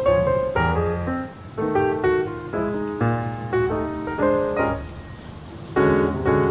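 Background piano music: chords and melody notes struck and left to ring, with a brief quieter stretch about five seconds in.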